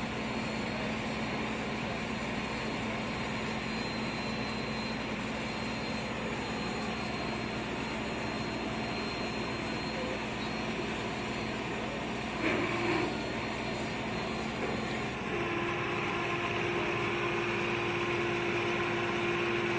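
Steady drone of airfield ground equipment running, such as the cargo loader beside the aircraft, with a constant hum; about 15 seconds in the hum steps up to a higher steady pitch, and there is a brief louder noise a little before that.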